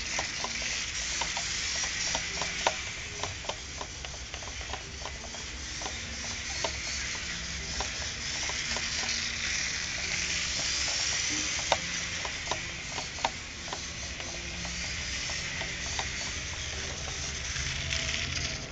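Small electric motor and gearing of a 1/32-scale RC tractor truck running, heard as a steady crackling hiss with a low hum and many light, irregular ticks.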